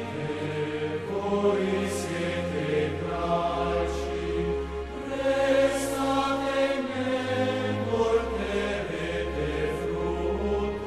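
Sacred choral music: voices singing a slow chant over long held bass notes that change every couple of seconds.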